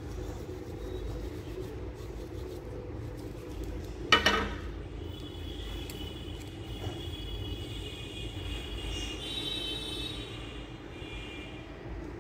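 Background traffic rumble with a sharp, loud sound about four seconds in that dies away quickly. From about five seconds in, high steady tones come and go for several seconds.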